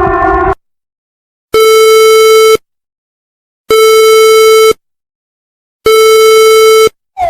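Emergency alert tone: three long buzzy electronic beeps on one steady low pitch, each about a second long and about two seconds apart. It opens with a louder multi-tone alarm that cuts off half a second in, and a wailing up-and-down siren tone starts right at the end.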